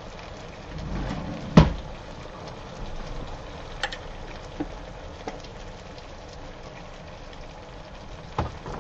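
Potatoes simmering in white wine in a frying pan, a steady crackling sizzle. A single sharp knock about one and a half seconds in is the loudest sound, with a couple of lighter clicks later.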